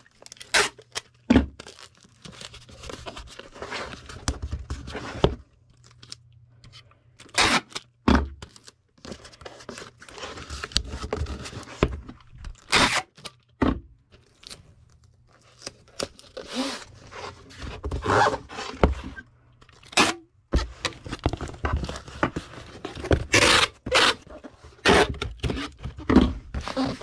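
A comic book being packed for shipping: packaging material rustling, scraping and tearing in irregular bursts, with several sharp knocks.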